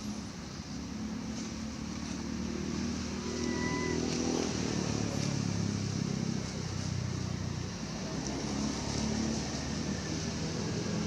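A motor vehicle engine running nearby, growing louder about four seconds in and holding steady, like a motorbike or car passing slowly.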